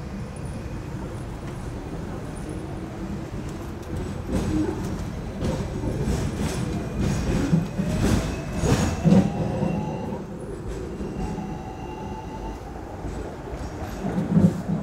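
Hong Kong double-decker tram running on street rails, heard from inside the car: a steady low rumble with clacks and knocks from the wheels on the track and faint thin squeals. It grows louder through the middle stretch while another tram passes close alongside, with a further loud knock near the end.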